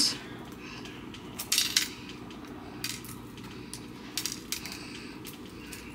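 Shell of a hot hard-boiled egg crackling as it is peeled by hand, with small pieces of shell clicking onto a plate in scattered light clicks, a quick cluster about one and a half seconds in.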